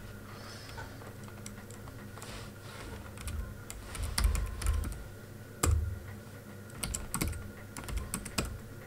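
Typing on a computer keyboard: irregular keystrokes, some in quick short runs, with a few heavier key presses.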